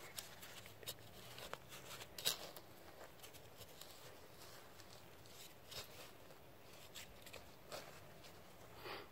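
Metal hand trowel digging into loose soil, faint scattered scrapes and crunches as the soil is loosened and flicked aside, the loudest a little over two seconds in.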